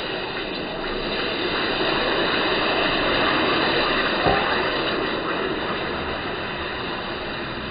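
A steady rushing noise, like running water or hiss, that swells and then slowly fades, with a single sharp click about four seconds in.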